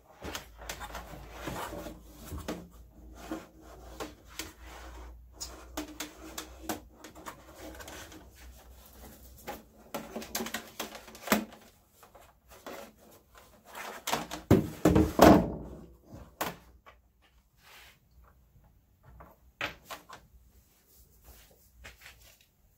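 A hollow plastic diesel-heater fuel tank being lifted, tilted and handled on a wooden bench, with a wire scraping and rattling inside it and scattered knocks of the tank. The loudest cluster of knocks comes about fifteen seconds in.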